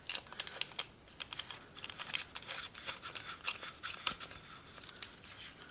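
Irregular small clicks, ticks and scrapes of hands working a flat nut onto a turn signal's threaded stem against a plastic mounting bracket.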